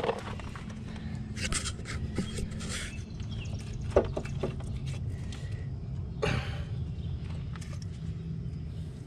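Scattered knocks and clunks from a 2004 Ford Focus's front suspension as the hub, rotor and steering knuckle are rocked by hand: a cluster of knocks about one and a half to three seconds in, a sharp click near four seconds and another clunk around six seconds. The knocking comes from end play in the worn driver's side tie rod end.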